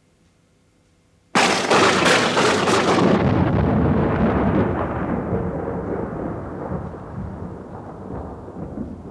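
Thunderclap: a sudden loud crack just over a second in, turning into a long rolling rumble that slowly dies away.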